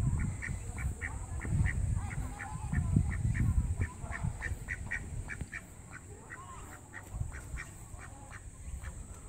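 Duck quacking in a fast, even run of short quacks, about three or four a second, thinning out over the last couple of seconds, over a low rumble.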